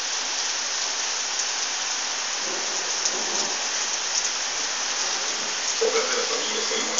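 Steady rain falling: a dense, even hiss with a few sharp drop ticks.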